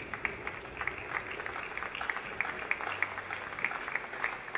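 Audience applauding: many people clapping their hands, breaking out right at the start and carrying on steadily.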